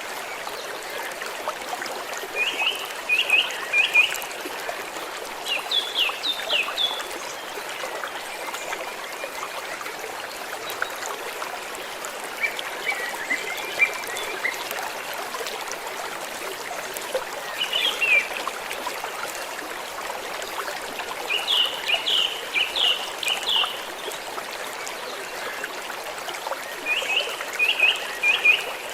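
Stream water flowing and trickling steadily. A bird repeats short groups of three to five quick high chirps every few seconds.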